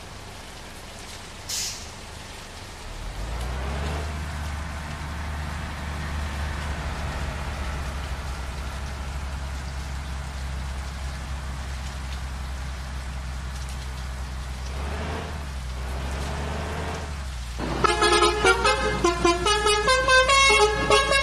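Bus engine running steadily, with a short hiss of air about a second and a half in and the engine rising a little later. Near the end a loud 'telolet' multi-tone bus horn starts, playing a quick tune of changing notes.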